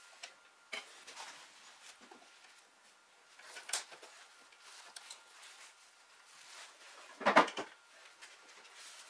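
Handling sounds of wooden seat boards and a steel bar clamp: scattered light knocks and clicks, with a louder clatter of a few quick knocks about seven seconds in as the clamp is set across the chair seat.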